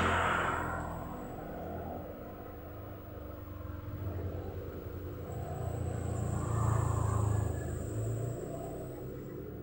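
Motor vehicle engine rumble passing by, fading at first and swelling again about two-thirds of the way in before dying down.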